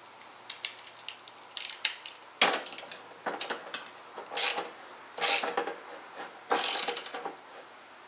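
Hand ratchet wrench clicking in a run of short, irregular bursts as it tightens the center bolt of a freshly replaced idler pulley on a Cub Cadet LTX1050 mower deck.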